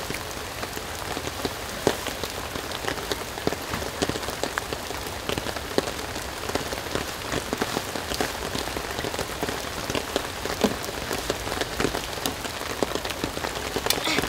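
Steady rain falling, with scattered sharp ticks of drops over the even hiss.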